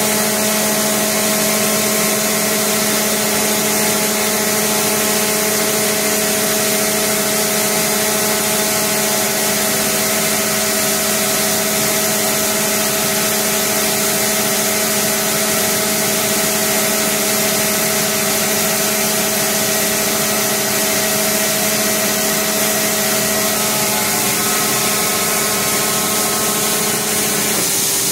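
Vertical CNC hobbing machine dry-hobbing a gear with no coolant: a steady machine whine of several held tones over a hiss of cutting. The tones shift slightly near the end.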